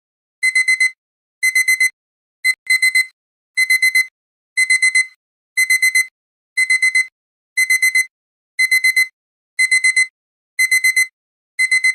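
Digital alarm-clock beeping: groups of four quick, high-pitched beeps repeated about once a second, the alarm that sounds when the countdown timer reaches zero.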